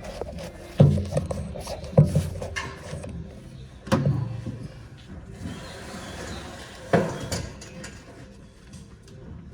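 Hand work on a van door's latch assembly and its cables: four sharp knocks and clunks, spaced irregularly, with rubbing and scraping between them.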